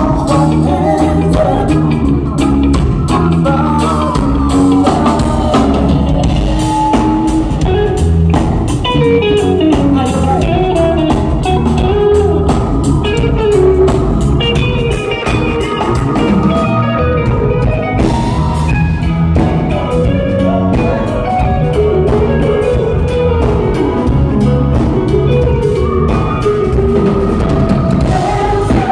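Live band music with drum kit and guitar playing a steady beat, and a singing voice over it.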